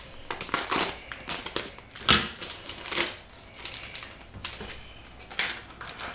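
A plastic bag of venison being slit open with a knife and handled, the plastic crinkling and rustling in short sounds about a second apart.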